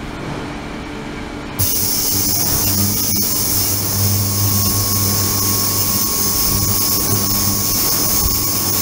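Ultrasonic cleaning tank switching on about one and a half seconds in: the sound jumps suddenly to a loud, steady high hiss with a low hum underneath, and a thin steady tone joins shortly after.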